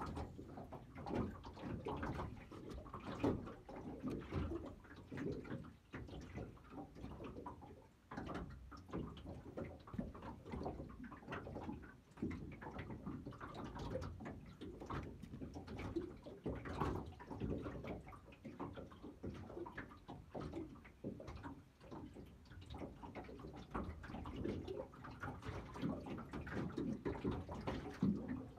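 Small waves lapping and slapping against an aluminium boat hull, an uneven run of small splashes and light hollow knocks.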